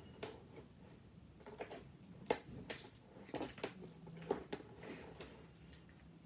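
Freshly activated homemade slime being kneaded and pulled by hand in a plastic bin: faint, irregular sticky clicks and squelches as the hands press into it and pull away.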